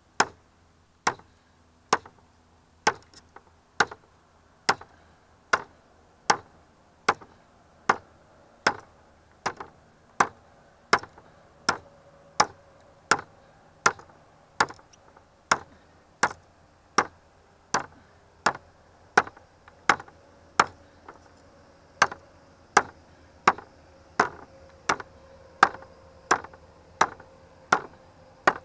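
Ka-Bar Parangatang parang chopping into an old, dense treated-lumber railing. Sharp chops come in a steady rhythm, a little more than one a second.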